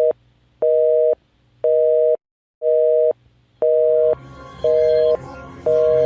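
Telephone busy signal: a two-tone beep pulsing half a second on and half a second off, about once a second, broken by a short gap of silence about two seconds in.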